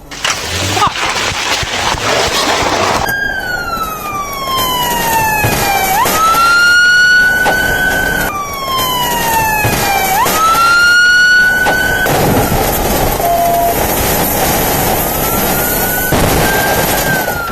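Police siren wailing, its pitch sliding slowly down and then sweeping quickly back up, over a steady rushing vehicle noise. The siren drops out about two-thirds of the way through and comes back fainter near the end.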